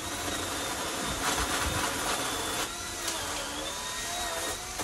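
Makita MUC002G cordless battery chainsaw running and cutting through an overhead branch: a steady motor whine with chain noise, wavering in pitch as it cuts. It starts suddenly and stops near the end.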